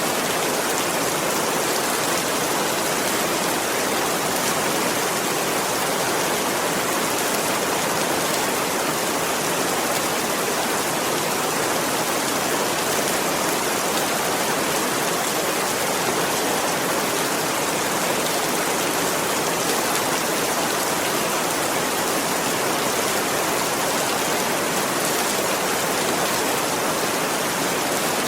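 Steady, dense rain, an even hiss with no breaks or changes.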